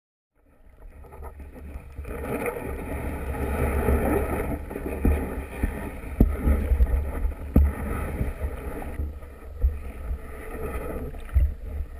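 Muffled water noise and low rumble picked up by a camera in an underwater housing just below the surface, with several sharp knocks.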